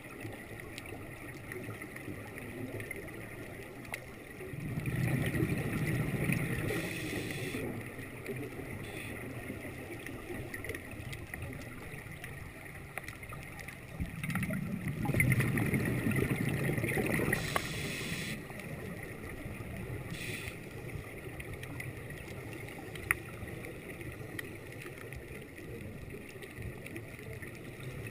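Underwater ambience with a steady low hiss, broken twice by a long rush of scuba exhaust bubbles from a diver's regulator, about five seconds in and again about fourteen seconds in, each lasting three to four seconds. A single faint tick near the end.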